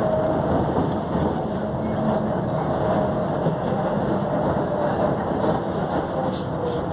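Volkswagen 17.230 OD bus running, with a loud whine from its differential heard as a droning tone over the road and engine noise; the tone dips lower near the end. A few short hisses come near the end.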